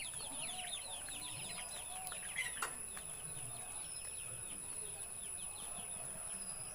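Bird chirping: a fast run of short, high, falling chirps, several a second, thinning out in the second half, with a single sharp click partway through.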